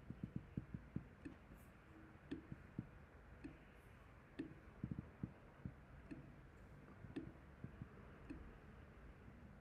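Faint computer mouse clicks at an irregular pace, some in quick runs of two or three, each click placing an anchor point with Illustrator's pen tool.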